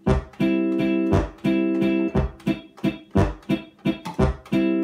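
Sampled guitar chords from an iPad sound app, triggered from a MIDI accordion, struck in a quick rhythm. The sustain switch is held down, so the chords ring on into one another.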